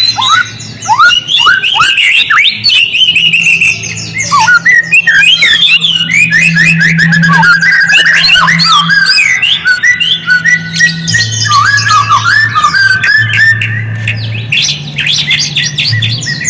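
Songbird's rapid, varied whistled song with quick rising and falling notes and chatter, played as a lure to set white-rumped shamas singing. A low steady hum runs underneath, stepping between two pitches.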